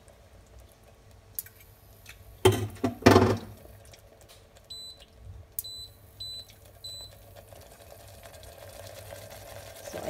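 A kitchen appliance beeping four times: one slightly longer high beep, then three short ones about two-thirds of a second apart. It comes after two loud knocks. Near the end, the tomato sauce in the pot starts to bubble as it comes to the boil.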